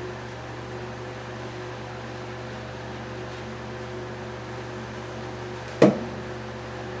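Steady hum of a fan or air handler, with one sharp knock about six seconds in as a plastic glue bottle is set down on the workbench.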